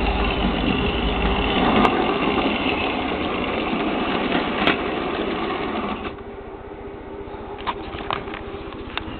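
Model railway locomotive running past on the track with a short train of small freight wagons: a steady motor whirr and wheel rattle with occasional clicks, dropping away sharply about six seconds in.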